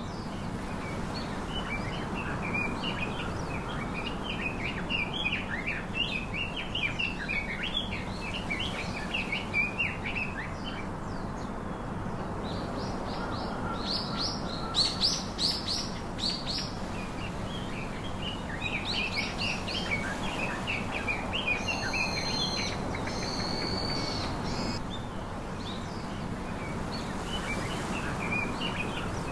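Small birds chirping and singing continuously over a steady background hiss, with a louder run of quick, high notes about halfway through and a few short held whistles a little later.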